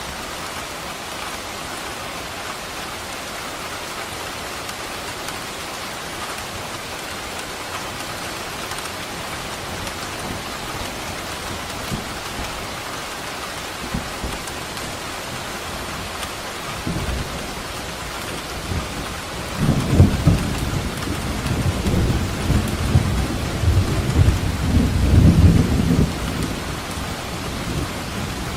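Steady rain falling, with a long roll of thunder that starts rumbling about two-thirds of the way in, peaks twice and fades near the end.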